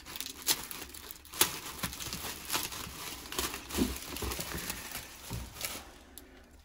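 Unpacking a parcel by hand: irregular knocks, clicks and crinkling of the packaging as it is cut open and pulled apart.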